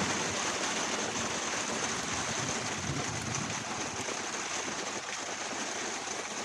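Rain falling on and around a motorhome, heard from inside as a steady hiss that eases slightly.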